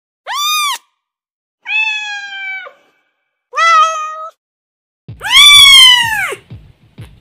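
Domestic cat meowing: four separate meows, the last one longest and loudest, each rising and then falling in pitch.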